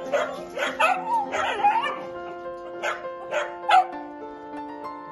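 Dogs barking and yelping, a quick run of barks with a rising yelp in the first two seconds, then three more barks about three seconds in, over soft background music with held notes.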